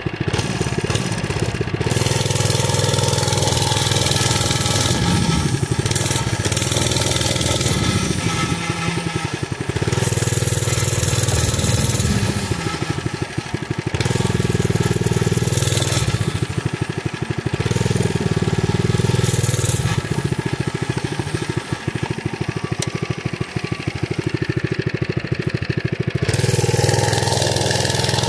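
Mini bike's small engine running under way, the throttle opening up and easing off again every few seconds as it is ridden over grass.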